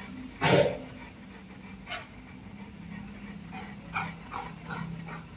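Dogo Argentinos panting: quick, faint, rhythmic breaths, with one loud sharp sound about half a second in.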